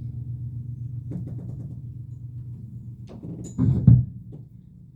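A low held musical tone fading slowly, then a few heavy low thumps about three and a half seconds in, like equipment being handled.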